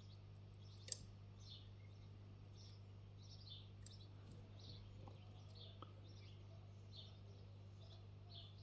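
Faint metallic clicks of a pick working the pins of a Miwa E6 dimple lock, one sharp click about a second in and a smaller one near four seconds. Behind them a steady low hum and a bird's short chirp repeated about twice a second.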